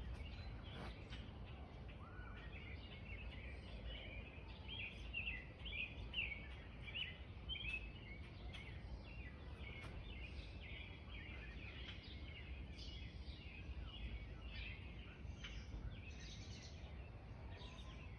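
Small songbirds chirping and twittering, many short quick calls, busiest a few seconds in, over a steady low background rumble.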